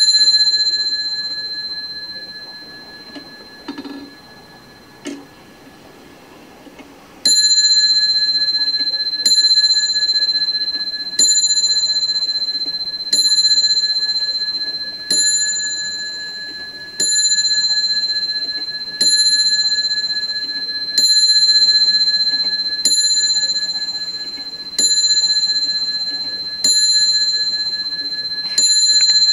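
Franz Hermle & Sons Dutch wall clock striking the hour on its bell. One strike is followed by a few faint mechanism clicks. About seven seconds in, twelve strikes follow about two seconds apart, each ringing out and dying away at the same pitch, with the hands at twelve.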